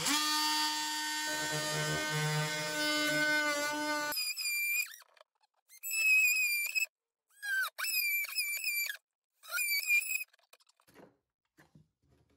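Oscillating multi-tool running with a steady high buzz, a lower rasp joining in about a second in as the blade plunge-cuts into the plywood cabinet back. This gives way to four short bursts of cutting with a wavering high-pitched whine, each cut off sharply. Near the end come a few faint taps.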